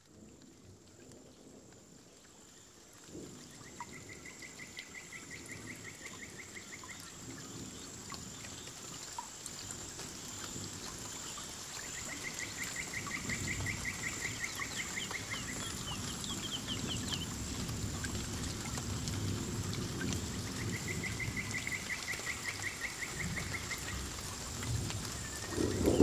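Water running and splashing in a paludarium waterfall, a steady rush that grows louder. Three high, fast-pulsed trills of about two seconds each sound at even intervals over it.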